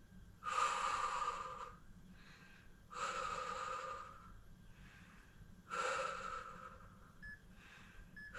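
A woman breathing out forcefully through her mouth three times, each breath about a second long and roughly two and a half seconds apart: exertion breaths during a plank leg-lift exercise.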